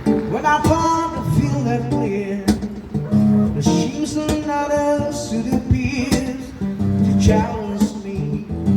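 A song played on acoustic guitar with singing.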